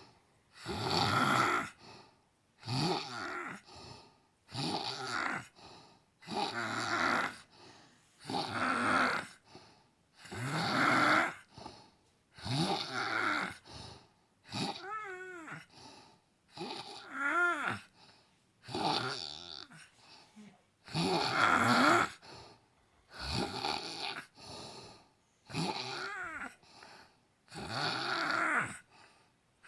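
A woman snoring in her sleep: a rasping snore about every two seconds, each followed by a shorter, quieter breath. Twice, about halfway through, the snore turns into a wavering whistle.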